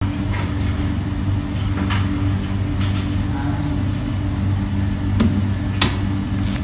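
Steady low mechanical hum, with two sharp clicks near the end.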